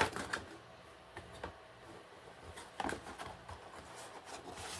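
Cardboard box and its contents being handled and pulled open: scattered light rustles and scrapes, with a louder scrape about three seconds in.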